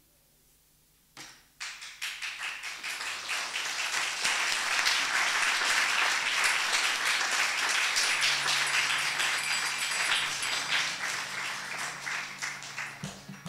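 Audience applauding: a few claps about a second in, swelling into full applause that fades near the end.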